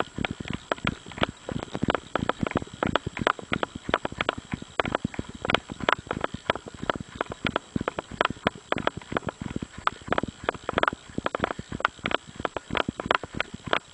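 Running footsteps crunching on a gravel dirt road, a quick, continuous train of footfalls.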